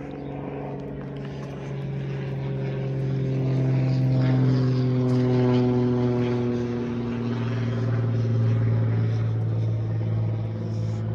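Propeller aircraft engine droning overhead, growing louder over the first few seconds, with its pitch sliding down a little as it passes.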